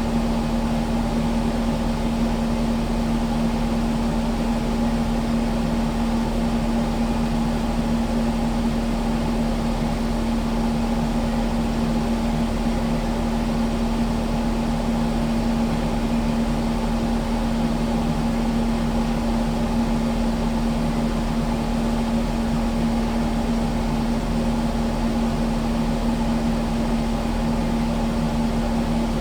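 Kubota skid steer's diesel engine running at a steady speed, a constant drone with a strong low hum that does not change.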